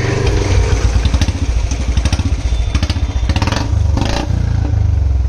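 Royal Enfield Bullet Standard 350 BS6 single-cylinder engine running through an aftermarket long Punjab silencer, with the stock catalytic converter still in place, showing its even fast beat. The throttle is opened briefly a few times about a second in and again between three and four seconds in.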